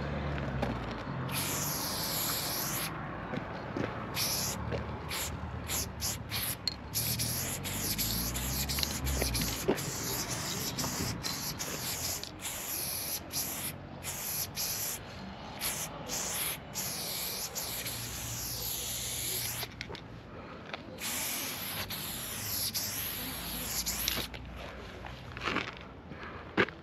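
Aerosol spray paint can hissing as paint is sprayed onto a wall, in bursts that start and stop: some long strokes and a run of quick short ones.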